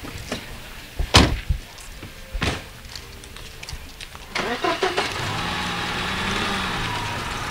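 Two car doors slam shut about a second and a half apart, then a car engine starts about four seconds in and keeps running steadily.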